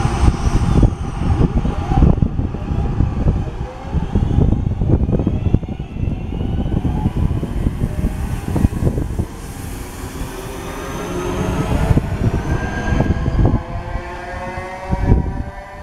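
London Midland electric multiple unit pulling out past the platform: a heavy rumble with rapid wheel clatter over the rails, then a rising electric whine of several pitches climbing together as it accelerates away.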